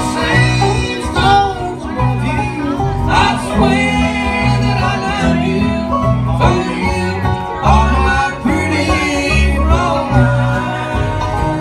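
Live country band playing: guitars strumming and picking over a steady, pulsing bass line.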